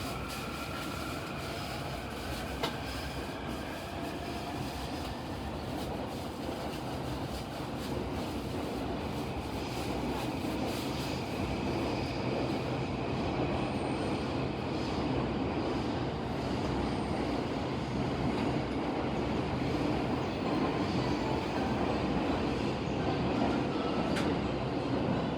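Running noise of a JR East E231/E233 series electric commuter train, heard from inside its cab-end car: wheels on rail and a steady rumble that grows gradually louder, with a faint gliding whine in the first seconds.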